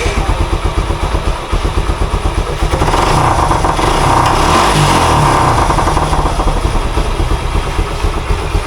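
Suzuki Gixxer SF's single-cylinder engine running with an even beat after a new camshaft, rocker arms, timing chain and timing-chain adjuster were fitted to cure a knocking noise. It is revved up about three seconds in and settles back to idle a couple of seconds later. With the knock gone, it sounds very nice, close to the original factory sound.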